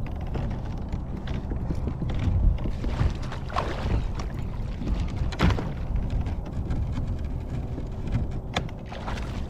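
Low rumble of wind buffeting the microphone, with a few sharp knocks about a third, halfway and near the end.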